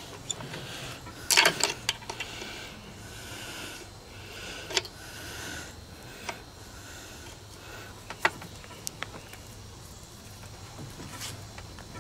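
Vise grips clamped on a broken-off cylinder head bolt, clicking and scraping against the metal as the bolt is worked loose from the aluminium block of a 1963 Evinrude 18 hp Fastwin outboard. There is a quick cluster of sharp clicks about a second and a half in, then scattered single clicks. A steady high buzz sits underneath.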